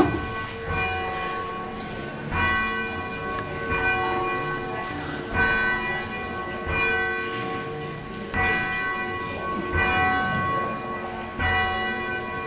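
A single church bell being swung and rung, striking about every one and a half seconds, each stroke ringing on into the next.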